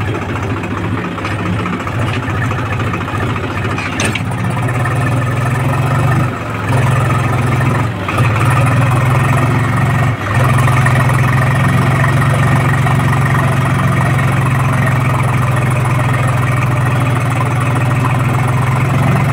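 Tractor's diesel engine running steadily under load while it pulls a two-bottom mouldboard plough through the ground. The note dips briefly a few times in the first half, then runs a little louder and steadier from about the middle on.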